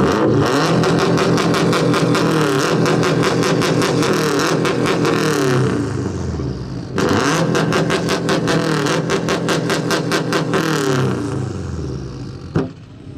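Subaru flat-four boxer engine with a loud aftermarket exhaust revved hard twice for a sound-level reading. Each pull is held high for about five seconds with a rapid, regular stutter, then drops back. The run reads 114.6 dB. A single sharp click comes near the end.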